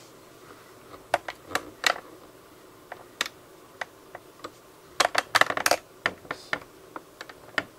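Computer keyboard keys clicking: a few separate keystrokes in the first half, then a quick run of them about five seconds in.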